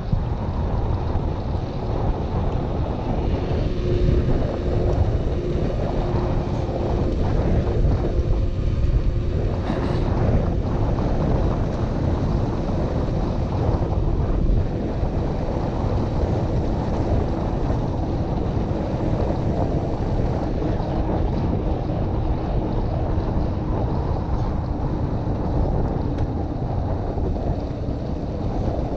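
Wind buffeting the action-camera microphone while riding a mountain bike, over steady tyre noise on wet asphalt with a faint steady hum.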